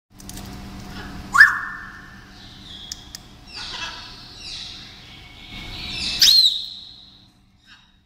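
Yellow-crowned amazon parrot whistling and calling. A loud sharp whistle comes about a second in and holds for about a second, softer raspier calls follow, and a second loud whistle swoops upward near the end.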